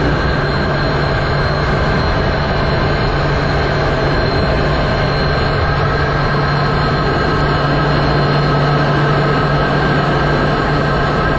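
Aircraft engine drone in steady cruise flight, a loud, unchanging hum with a faint high whine, heard from on board.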